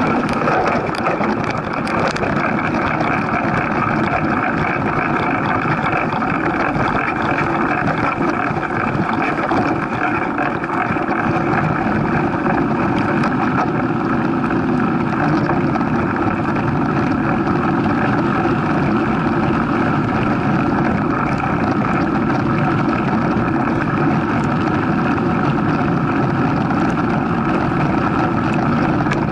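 Steady rushing noise on a bike-mounted action camera while a mountain bike rides a dirt heath trail: wind on the microphone mixed with tyre rumble and light rattling of the mount.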